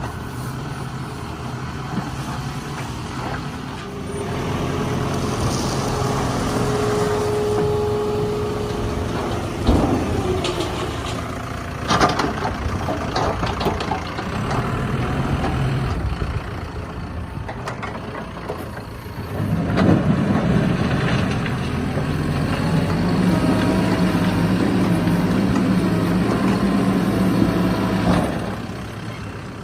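Mahindra backhoe loader's diesel engine working under load, the revs rising a few seconds in and again about two-thirds through. A couple of sharp knocks come about ten and twelve seconds in.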